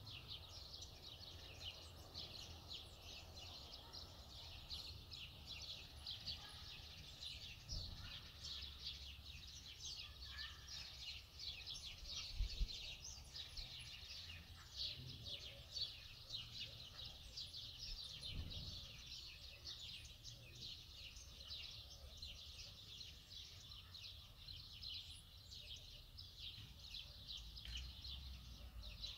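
Faint, busy chirping of many small birds, a dense twitter that never stops, with a few low knocks along the way, the loudest about halfway through.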